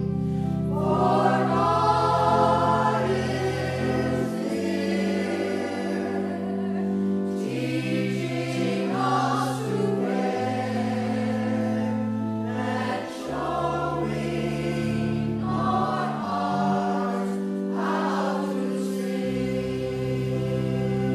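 Voices singing a slow hymn in phrases, over sustained low chords held and changed in steps.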